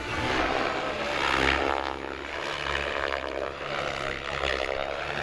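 Radio-controlled model airplane's motor and propeller running overhead, its pitch rising and falling as the throttle changes.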